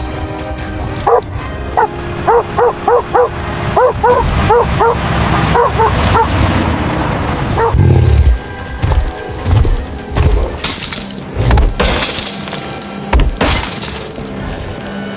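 Dog barking fast and excitedly, about a dozen barks in quick succession, over dramatic music. About eight seconds in this gives way to heavy thuds and loud bursts of crashing, shattering noise.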